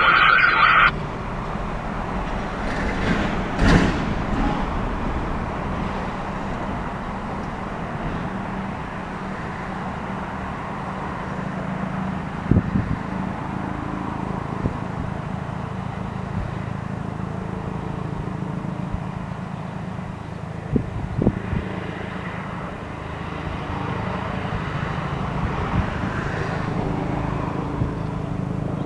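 A loud tone cuts off abruptly about a second in, followed by steady road-traffic noise with a low hum and a few short knocks.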